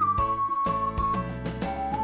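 Background music: a whistled or whistle-like melody over a plucked accompaniment with a steady beat.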